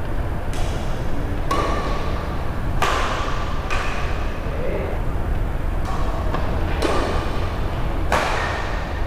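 Badminton rackets striking a shuttlecock in a rally: about six sharp hits at uneven intervals, each ringing briefly in the hall, over a steady low rumble.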